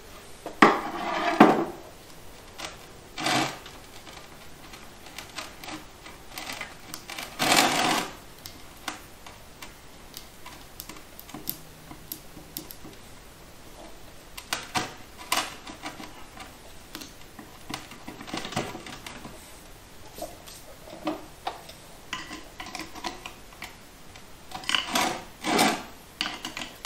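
Steel tools prying, tapping and scraping on a rusted TH350 transmission oil pump, trying to free its rust-seized pump gear: irregular metallic clicks, knocks and scrapes, loudest about a second in, near eight seconds and near the end.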